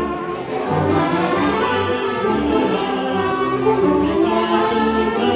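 Small street band of saxophone, accordion and trumpet playing a lively tune, with a steady low bass note on the beat.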